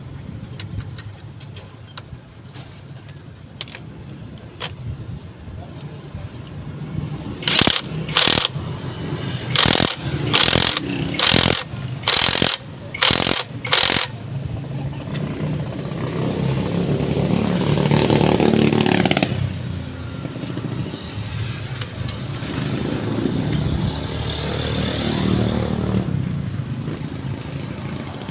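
About eight short, loud mechanical bursts in quick succession, then a motor vehicle engine that swells and fades as it passes, with a second, weaker pass near the end.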